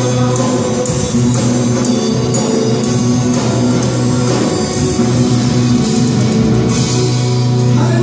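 Live band playing a gospel rock song: electric guitar and drum kit with regular cymbal strikes over sustained bass notes.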